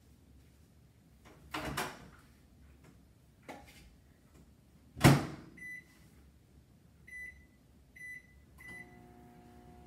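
Countertop microwave oven being loaded and started: a couple of knocks, then the door shut with a loud bang about five seconds in. Four short high keypad beeps follow, and the oven starts running with a steady hum near the end.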